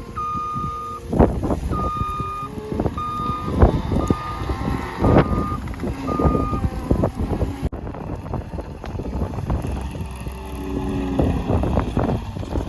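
A machine's reversing alarm beeping about once a second for the first half, over a running engine's rumble and wind buffeting the microphone.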